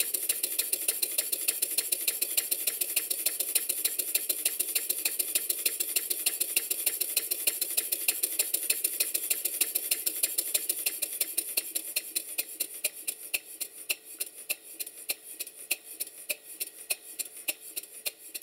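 Stuart No. 1 single-cylinder double-acting model steam engine running smoothly, its main bearing freshly adjusted: a quick, even beat of steam exhaust puffs and light mechanical clicks over a steady hiss. From about two-thirds of the way through, the beats slow down and fade as the engine runs down.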